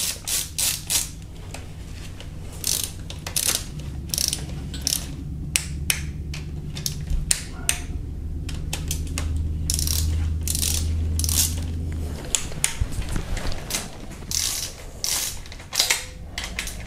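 Ratchet wrench clicking in quick, irregular runs as camshaft cap bolts are turned down on an aluminium cylinder head. A low steady hum runs underneath from about four seconds in until about twelve seconds.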